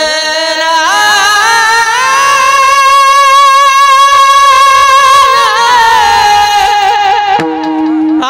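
A single voice singing a long, drawn-out melismatic phrase of a Marathi devotional abhang, with the held notes wavering in vibrato. Near the end a short, steady lower note sounds briefly before the singing resumes.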